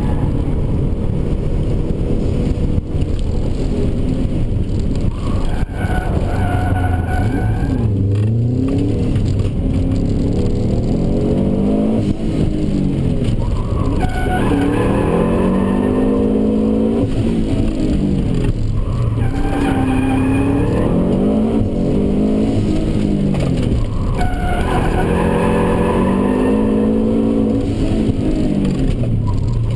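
Subaru Impreza WRX wagon's turbocharged flat-four engine, heard from inside the cabin, revving up and easing off again and again through a tight gymkhana course. Tyres squeal at several points as the car slides through the turns.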